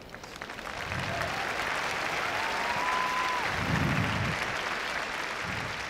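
Arena audience applauding, swelling about half a second in and then holding steady, with one long cheering call rising above it midway.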